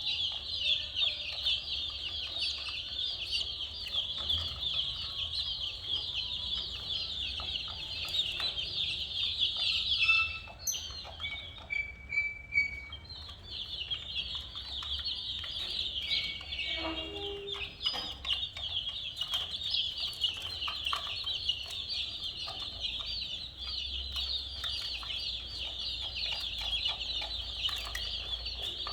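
A brood of baby chickens peeping: a dense, continuous chorus of high-pitched chirps. About ten seconds in it stops for roughly three seconds, leaving only a few scattered peeps, then starts up again.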